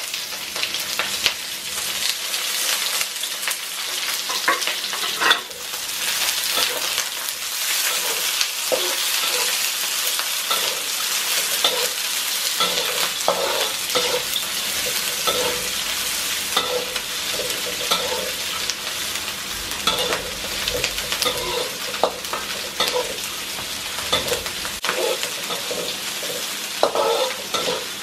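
Sliced onions and curry leaves sizzling in hot oil in a wok, with repeated scrapes and clinks of a spatula against the pan as they are stirred.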